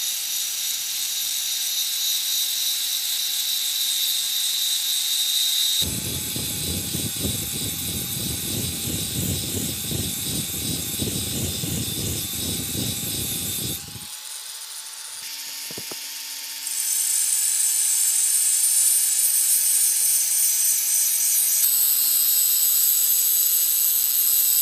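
Electric angle grinder running with an abrasive disc pressed against a rusty steel blade: a steady motor whine under a sharp grinding hiss as the rust is ground off to bare metal. The grinding eases off for a few seconds past the middle, then comes back louder.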